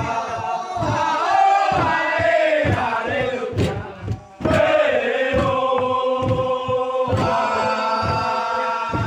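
Group of men chanting together in a Manggarai ritual song, several voices holding long sliding notes over a low thud about twice a second. The singing breaks off briefly about four seconds in and starts again.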